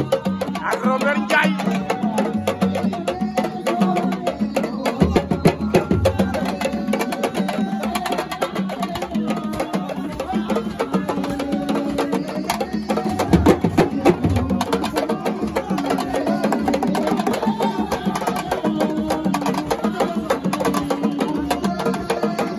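Sabar drum ensemble playing a fast, dense rhythm of sharp stick-and-hand strokes, with voices singing over the drums.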